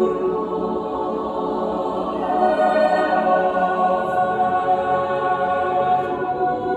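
Mixed-voice a cappella choir singing slow, sustained chords without accompaniment; about two seconds in, the chord shifts and higher voices come in above it.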